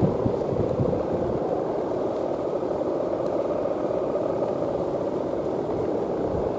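Steady droning hum of a Balinese kite's guangan, the hummer bow strung above the kite, its taut ribbon vibrating in the wind, over low wind rumble.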